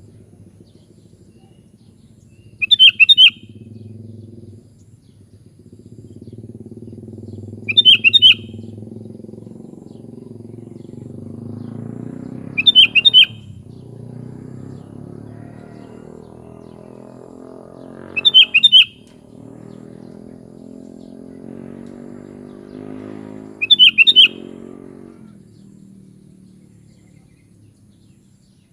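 Sooty-headed bulbul (kutilang) calling: five short bursts of quick notes, one about every five and a half seconds, over a faint low hum.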